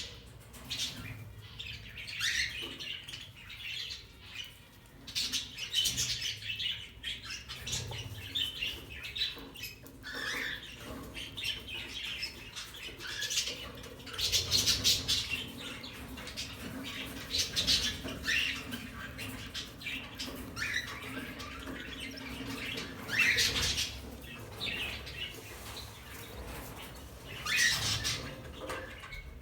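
Budgerigars chirping and squawking in short harsh bursts, with louder squawks every few seconds.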